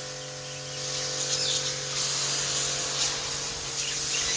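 Electric pressure-washer pump spraying water in a steady hiss over the hum of its motor; the spray gets louder about two seconds in.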